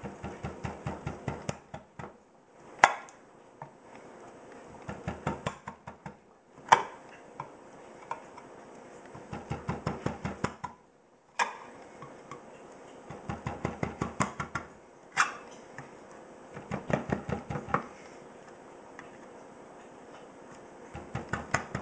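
Entrek USA Badger fixed-blade knife being worked into the lid of a steel food can. There are about six bursts of quick metallic clicking, each lasting a second or so, and a single sharp knock between most of them as the knife is driven into the metal.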